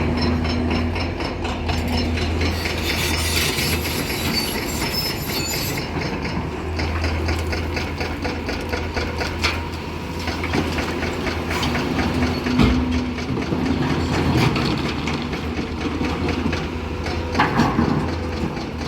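Large tracked hydraulic excavator working: its diesel engine runs steadily under a low hum while metal parts clank and knock. High metallic squealing comes in from about two to six seconds in.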